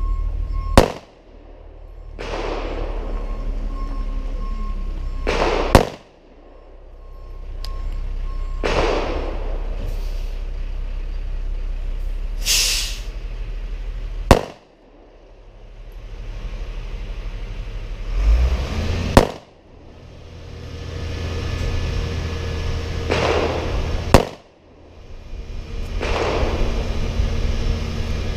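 Kel-Tec PF9 9mm pistol firing 115 grain Speer Gold Dot hollow points in slow fire: five sharp shots several seconds apart, each round feeding without a malfunction. A steady hiss fills the gaps and swells back after each shot.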